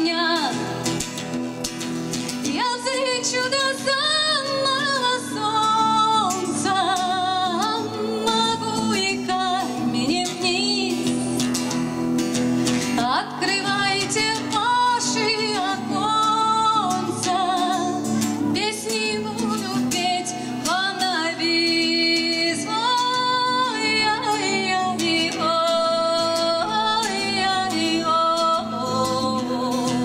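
A woman singing with her own acoustic guitar accompaniment, the voice moving in long held notes over steady strumming.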